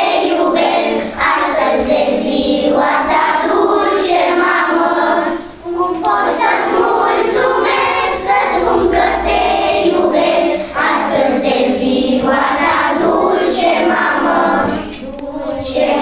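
A class of young children singing a song together as a group, with a short break between phrases about five and a half seconds in.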